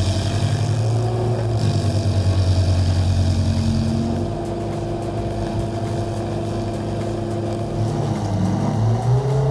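Large engine of a heavy machine running steadily. Its pitch drops slightly about four seconds in and rises again near the end.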